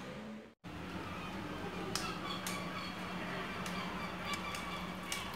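Scattered light clicks and taps, a few per second at irregular spacing, over a steady low hum; the sound drops out for an instant about half a second in.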